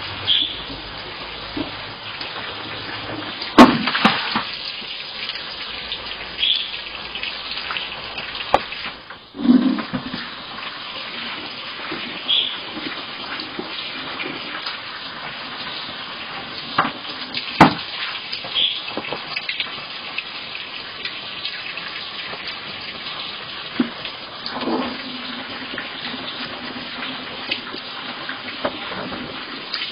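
Water being poured and splashing from a bucket, heard through a security camera's microphone over a steady hiss, with a few sharp knocks, the loudest about four seconds in and again near the middle.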